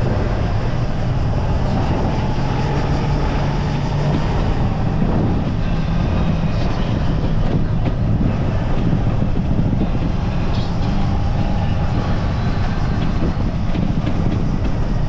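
Steady low rumble of a running engine, even in level throughout.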